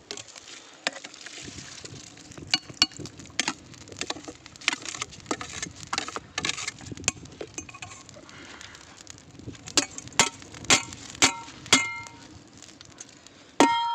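Metal utensils clinking and tapping on a large cooking pot as rice is added to the chicken biryani. The clinks are sharp and irregular, then about ten seconds in come a few ringing metal taps about every half second, and a louder ringing clang comes just before the end.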